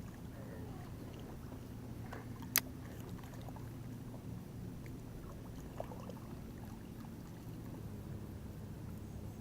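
Quiet on-the-water sounds from a kayak: a steady low hum with small knocks from handling gear aboard, and one sharp click about two and a half seconds in.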